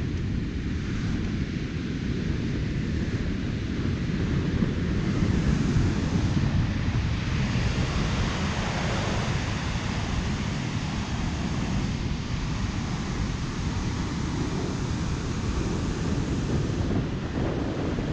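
Wind buffeting the microphone as a low, gusty rumble over the hiss of ocean surf on the beach; the surf swells about a third of the way in.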